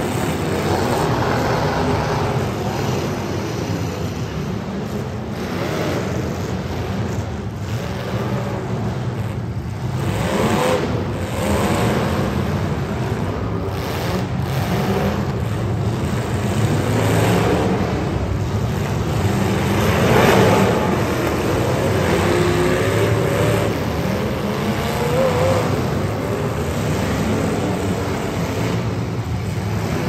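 Several demolition derby car engines revving up and down together, with a few knocks of impact in between.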